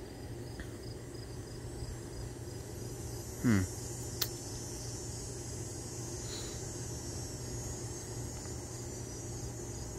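Summer insects, crickets, trilling steadily over a low, even background hum. About three and a half seconds in, a brief falling pitched sound stands out, followed a moment later by a sharp click.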